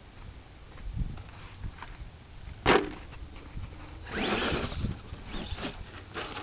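Brushed electric motor of an ECX Amp MT RC monster truck, running on a 3S battery, whining as it revs up and down, with its tyres scrabbling on dirt as it drives past. It is loudest about four to five seconds in. A sharp knock comes about two and a half seconds in.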